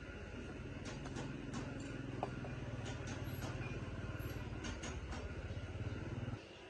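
An electric motor running with a steady low hum, switched off abruptly near the end.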